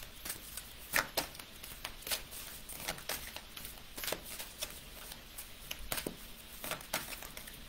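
A deck of oracle cards shuffled by hand: a run of soft, irregular clicks and slides of card against card, a little louder about a second in and again about four seconds in.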